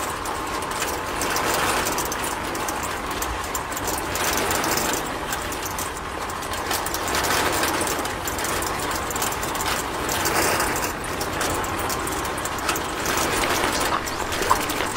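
Small electric motor driving a miniature toy cement mixer's drum through its gears, running with a steady rattling grind. A couple of small clicks come near the end.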